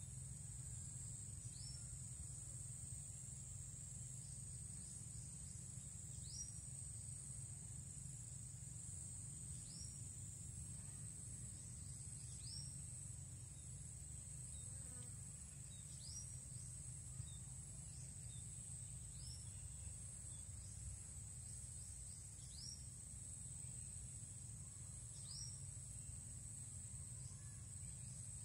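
Faint, steady high-pitched drone of insects. A short high chirp repeats about every three seconds, over a low rumble underneath.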